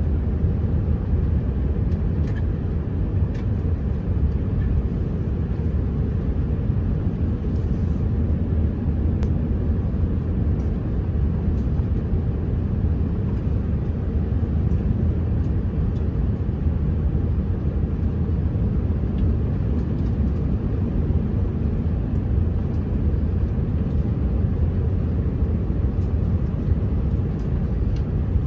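Airliner cabin noise on final approach: a steady, deep rumble of engines and airflow, with a few faint clicks.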